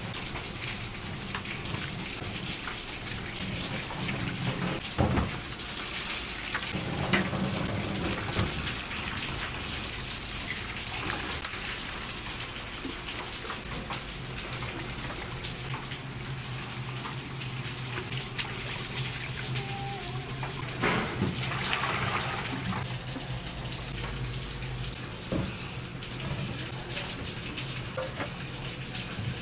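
Tap water running steadily into a stainless steel sink, splashing over a plastic basin and then over raw chicken pieces being rinsed in a metal bowl, with a few sharp knocks of dishes against the sink.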